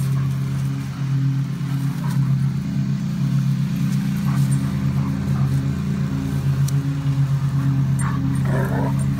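A German Shepherd and a Labrador puppy play-fighting, with short growls and snarls every few seconds and a longer bout near the end. A steady engine drone runs underneath.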